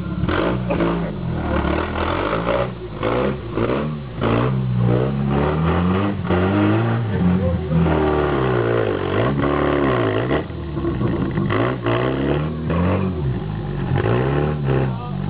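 Jeep TJ Wrangler engine revving up and falling back over and over as the off-roader drives through deep mud and claws up a steep muddy bank, with some knocks and clatter in between.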